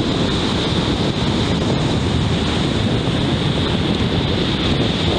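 Wind buffeting the microphone over the steady rush of surf breaking on a sandy beach.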